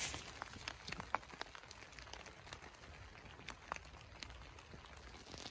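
Light rain: scattered raindrops ticking irregularly over a faint steady hiss.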